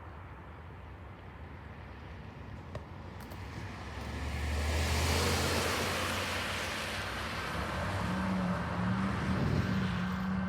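CSX diesel freight locomotives approaching and passing: engine rumble and the rush of wheels on rail swell about four seconds in and stay loud.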